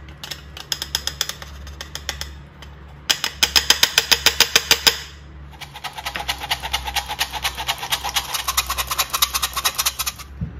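A stainless steel squeeze-handle flour sifter being worked rapidly, clicking and rasping several times a second as flour passes through its mesh. It goes in three runs with brief pauses, the middle run the loudest.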